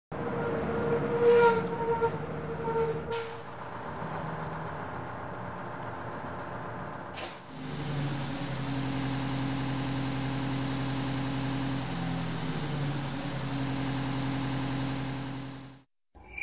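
Bus engine running, with three short hisses of air in the first seven seconds. From about eight seconds in the engine holds a steady low drone, which cuts off just before the end.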